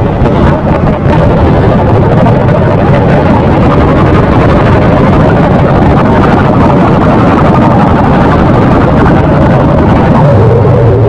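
A loud, steady rumbling noise with no clear rhythm or tone.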